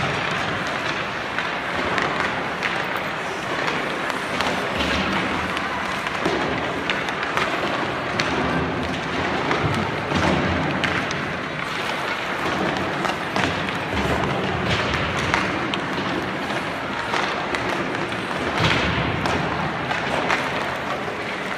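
Ice hockey drill: skates scraping on rink ice and sticks and pucks knocking, with irregular low thuds throughout.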